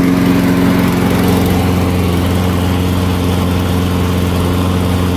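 Small single-cylinder engine running steadily just after being started, with its tone shifting slightly about a second in. It runs on a freshly cleaned carburetor and fresh fuel after water-contaminated gas was drained.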